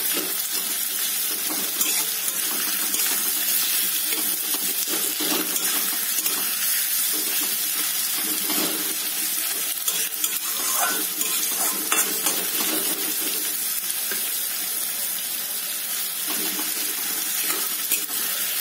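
Sliced onions sizzling in hot mustard oil in a kadhai, with a metal spatula scraping and knocking against the pan as they are stirred.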